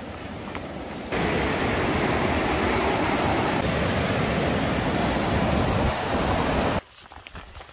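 Rapids on the Nepisiguit River rushing over rock ledges: a steady wash of white water that grows louder about a second in and cuts off suddenly near the end.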